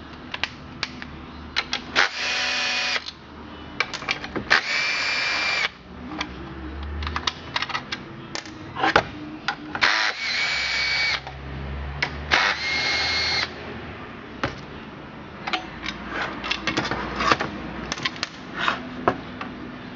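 A cordless drill runs four times, each run lasting about a second with a steady high whine, as it backs out the screws holding the starter cover on a Homelite Super 1050 chainsaw. Between the runs come clicks and clatter of screws and the plastic cover being handled.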